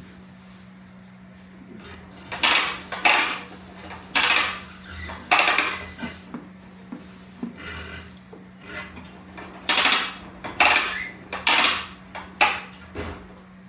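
Metal tools clattering and knocking as they are picked up and handled on a workbench: a string of about eight loud, irregular knocks and rattles over a steady low hum.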